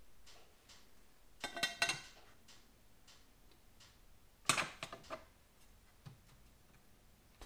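Metal clinks and clatter as the Accusump's oiled piston meets the rim of its anodized cylinder and is worked into the bore. There are two short bursts about three seconds apart, the first with a brief ring.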